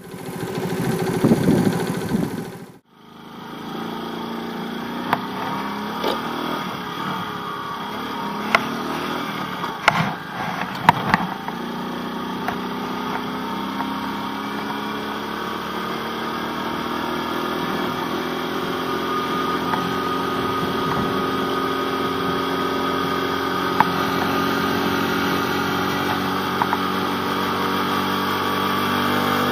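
Small motorcycle engine running steadily during a ride, heard from a camera mounted on the bike, with a few sharp clicks in the first half and the engine note rising slowly later on. A short, louder sound at the start cuts off abruptly.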